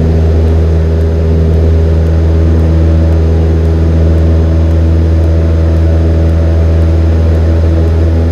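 Cessna 172N's four-cylinder Lycoming engine and propeller running steadily at full takeoff power: a loud, even drone with a strong low hum.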